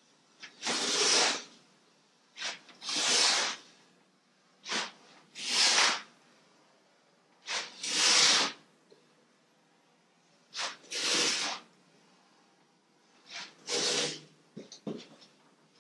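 Blue painter's masking tape pulled off the roll in six pulls, about one every two and a half seconds. Each pull is a brief rip followed by a longer one.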